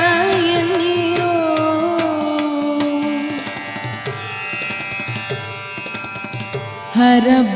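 A woman's voice holds a wavering note of a Kannada devotional song, ending about three seconds in. Hand-drum strokes then play over a steady drone until her singing returns near the end.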